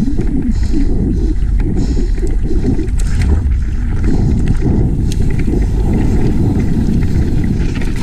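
Mountain bike ridden down a dirt enduro trail: a loud, steady low rumble of tyres on the ground and air buffeting the camera microphone, with the bike rattling and a few sharp clicks.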